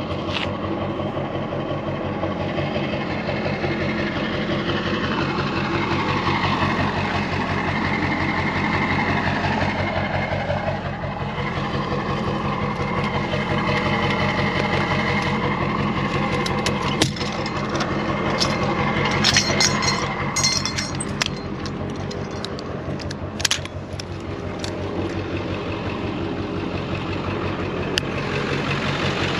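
Tow truck engine idling steadily, with sharp clicks and rattles from a tie-down strap being fastened around a car's wheel on the wheel lift in the second half.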